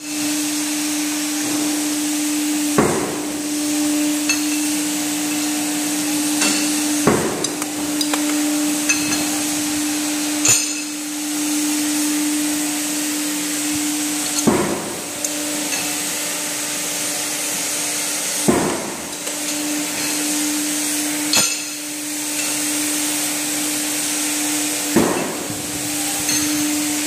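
Hydraulic ironworker punching bolt holes in flat steel strips: the machine's motor hums steadily while a sharp bang sounds with each punch stroke, seven times at a steady pace of roughly one every four seconds, with lighter metal clinks between strokes.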